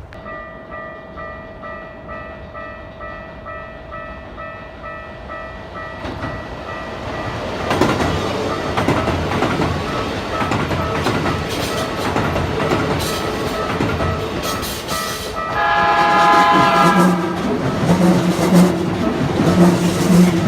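Level-crossing warning bell ringing in a steady repeating pattern, then a Keikyu train running through the crossing, its wheels clattering over the rail joints. About three-quarters of the way in the train's horn sounds once, for a second or two.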